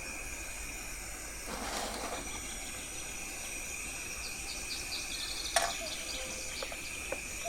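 Steady outdoor background hiss with a thin high tone. A few faint bird chirps come about four to five seconds in, and a single sharp click follows about five and a half seconds in.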